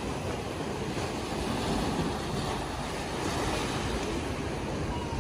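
Small waves washing up a sandy beach and swirling around concrete blocks and rocks at the water's edge, a steady surf wash, with wind buffeting the microphone.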